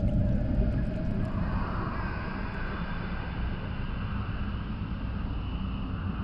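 Low, dense rumbling drone with a hissing mid-range layer that swells about a second and a half in and holds steady.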